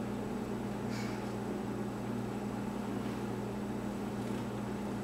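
Steady low hum with a light hiss over it, and a faint brief rustle about a second in.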